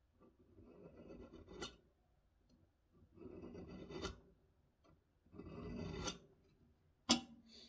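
Steel scriber drawn along a square across a steel plate coated in engineer's blue, scratching a scribe line in three strokes, each ending in a sharp tick, with a further click near the end.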